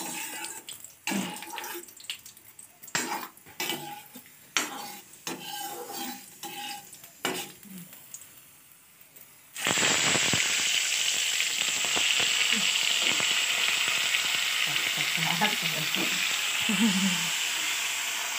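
Metal utensils clinking and knocking against a kadhai, then about halfway through hot oil bursts into a loud, steady sizzle as the masala-stuffed tomatoes go into the fenugreek-tempered oil to fry.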